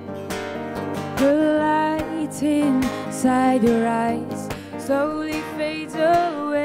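Live music: a woman singing to her own acoustic guitar accompaniment, the voice coming in about a second in over the guitar chords.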